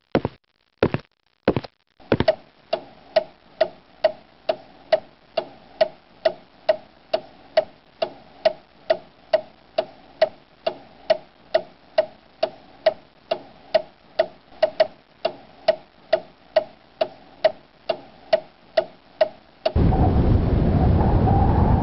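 Clock ticking evenly, about two ticks a second with a slight ring to each tick, after a few sharp knocks at the start. Near the end the ticking stops and a loud steady rushing noise cuts in.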